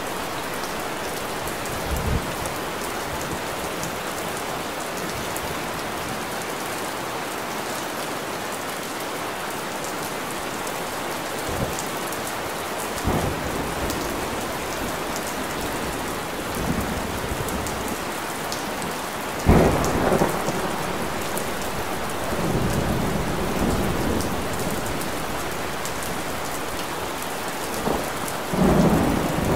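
Steady rain hissing, broken by several short, low rumbles. The loudest rumble comes about two-thirds of the way through.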